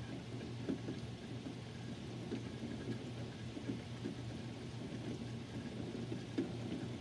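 Rain falling during a thunderstorm, with irregular drops pattering close by, over a low steady hum. No thunder stands out.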